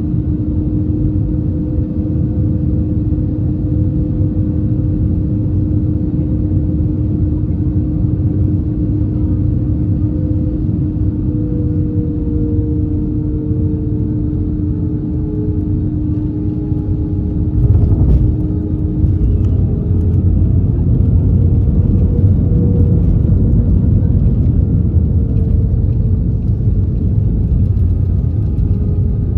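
Airbus A321 cabin noise: a steady low rumble from the engines and airflow, with two steady humming tones, one of which slides down in pitch midway. About two-thirds of the way through there is a brief knock, after which the rumble grows slightly louder.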